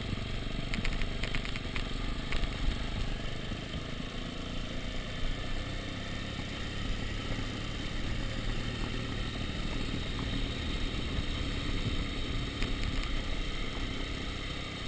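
Dirt bike engine running steadily at low revs, heard from the rider's own bike, with scattered clicks and rattles as it rolls over a cobblestone road.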